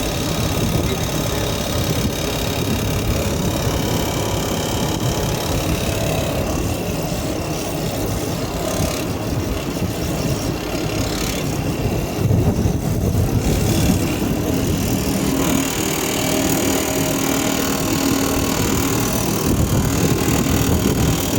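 Air-conditioning unit, likely part of a VRV system, running with a steady, loud mechanical noise that is presented as an abnormal noise fault. A low, steady hum joins in about three-quarters of the way through.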